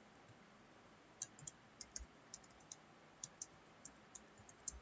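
Faint, irregular clicking of computer keyboard keys being typed on, about a dozen separate key presses starting about a second in.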